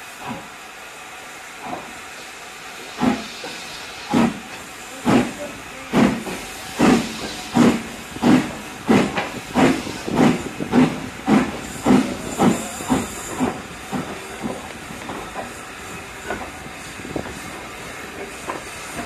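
LMS Hughes Crab 2-6-0 two-cylinder steam locomotive starting away under a steady hiss of steam. Its exhaust beats quicken from about one a second to about two a second, then grow softer from about thirteen seconds in.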